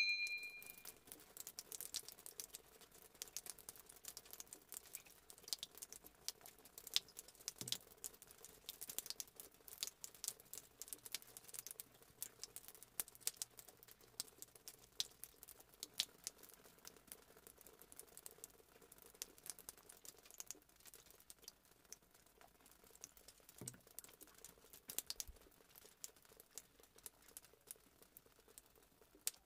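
Electric hand mixer beating eggs, sugar, flour and emulsifier into a thick, pale sponge-cake batter, heard faintly: a steady motor hum with irregular light clicks and ticks of the beaters in the bowl.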